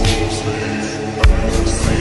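Slowed, reverb-heavy electronic music with sustained synth notes. The deep bass drops out for about a second, then a heavy bass hit brings the beat back in.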